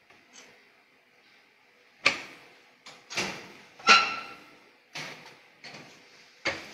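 Sharp clunks and knocks at a high-frequency (RF) plastic welding machine as its press and the workpiece are worked: about seven, each dying away quickly, starting about two seconds in, the loudest about two and four seconds in.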